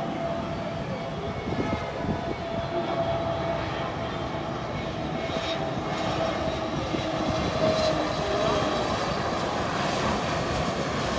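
Jet airliner engines running: a steady rushing rumble with a held whine, growing slightly louder in the second half.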